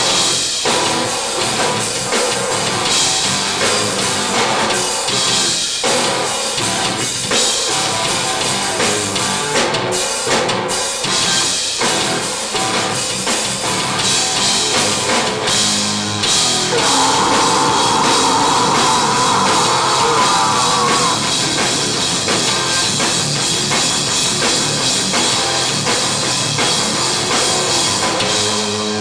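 A heavy rock band playing live at full volume, driven by a drum kit. About seventeen seconds in, a wavering high melodic line rises above the band for a few seconds.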